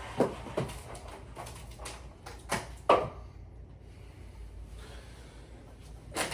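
A desk being shoved across the floor: a string of knocks and bumps with some scraping, the loudest bang about halfway through.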